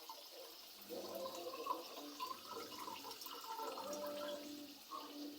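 Water bubbling and gurgling in a pot of toasted vermicelli, with short irregular pops, as freshly added water heats.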